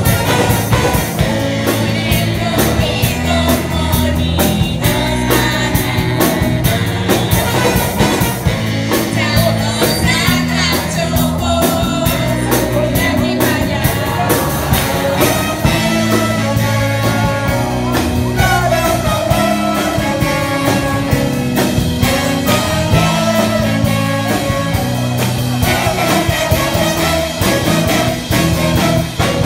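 Live band with drum kit and electric guitar playing a song with a steady beat, while a group of women sing together into microphones.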